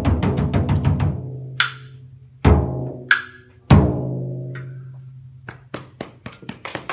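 Hand percussion: a large frame drum struck three times, each hit ringing out low, with a quick run of woodblock taps in the first second and two short handbell rings between the drum hits. A scattered series of woodblock taps follows near the end.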